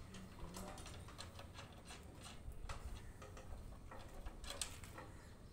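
Faint, scattered metallic clicks and taps from steel column formwork plates being worked loose by hand, their nuts being undone, after the concrete pillar has been cast.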